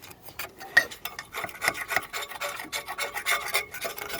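Rapid, irregular scraping strokes of a hand tool rasping against a hard surface, several strokes a second.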